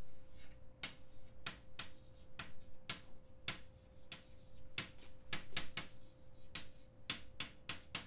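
Chalk writing on a blackboard: a quick, irregular run of short taps and scratches as each stroke of an equation is put down.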